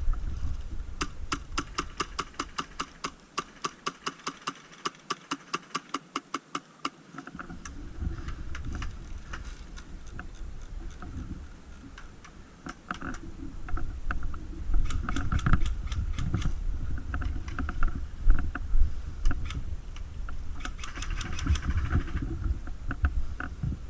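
Airsoft gun firing rapid, evenly spaced shots, about four clicks a second for the first several seconds, followed by scattered single shots among rustling gear and movement.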